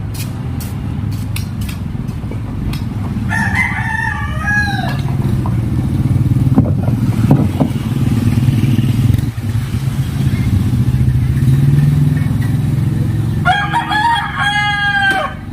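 A rooster crowing twice, each crow drawn out for well over a second, over a steady low hum.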